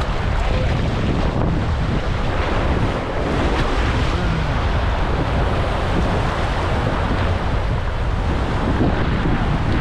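Wind buffeting the microphone over breaking surf: a loud, steady rushing noise.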